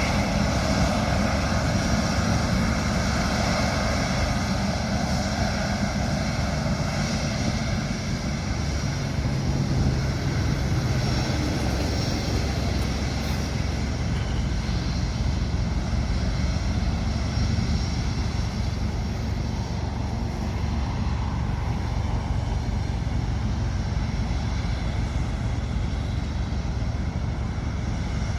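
Boeing 777-300ER's GE90-115B turbofan jet engines running with a steady noise and low hum.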